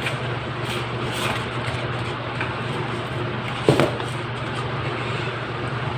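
A paper protective sheet being lifted off a laptop and laid down on a table: a few light rustles and one louder crinkle or knock just before four seconds in, over a steady low background hum.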